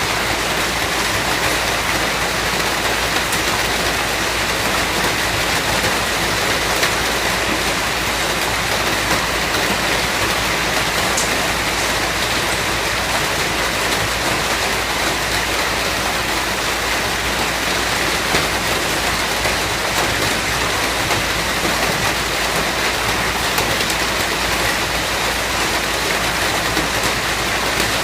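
Steady, dense rain falling, an even hiss of countless drops with no change in strength.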